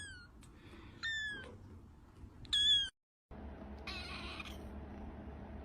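Kitten mewing: three short, high-pitched mews, the third the loudest. After a cut, a brief rustling scrape is heard about four seconds in.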